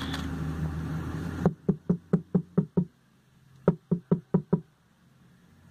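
Plastic bottle of foot lotion shaken hard in the hand, giving two runs of quick knocks, about five or six a second, with a short pause between them.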